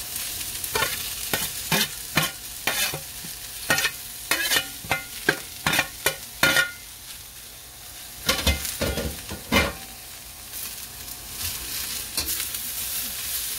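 Metal spoon scraping shredded cabbage and chayote off a metal plate into a hot oiled wok, with quick scrapes and taps about twice a second, then a few louder strokes as the vegetables are stirred. The oil sizzles under the vegetables, the sizzle filling out near the end.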